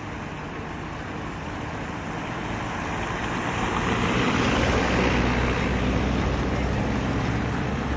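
Engine rumble of a passing motor vehicle, swelling louder from about three seconds in and then staying up.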